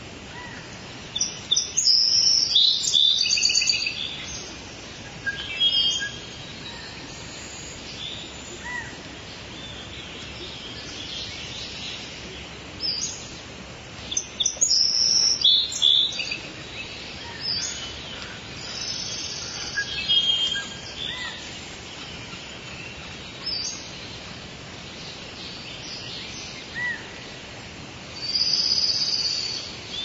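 Several wild birds chirping and calling in rainforest, over a steady background of forest noise. The calls come in short, quick clusters of high chirps, the loudest about a second in, around halfway, and again near the end.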